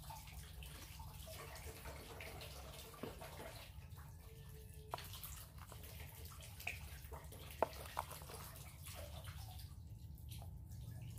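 A wooden spoon lightly knocking and scraping against a plastic container and a glass jar while powdered mushroom stock is spooned in. There are a few short taps, the sharpest about two-thirds of the way through, over a steady low background hum.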